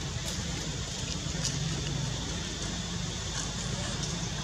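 Steady low hum under a background hiss, with a few faint clicks.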